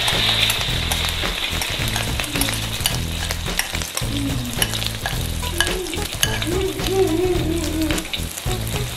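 Egg batter with shredded vegetables and shrimp frying in hot oil in a stainless steel wok, sizzling with a busy crackle of popping bubbles. The hiss is loudest as the batter first goes into the oil.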